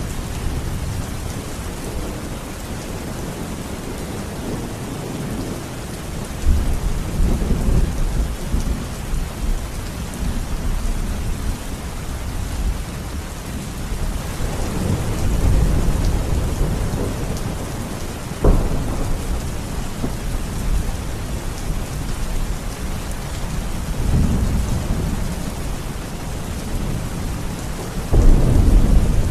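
Thunderstorm: steady heavy rain hiss with low rolls of thunder swelling every several seconds. There is a sharp crack of thunder about two-thirds of the way through and a loud clap near the end.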